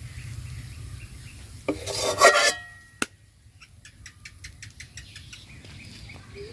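A metal spoon scraping and rasping against a cooking pan as the cooked sorrel greens are stirred and scooped, with one loud scrape ending in a brief metallic ring. A single sharp clink about three seconds in.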